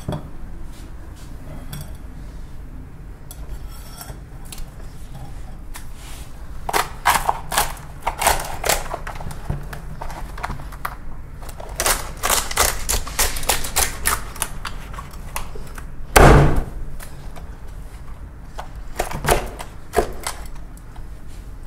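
A large kitchen knife cracking and crunching through a giant lobster's shell as the lobster is split lengthwise, with rapid runs of sharp cracks starting about a third of the way in. A single heavy thud about three-quarters through, where the knife knocks down on the wooden cutting board.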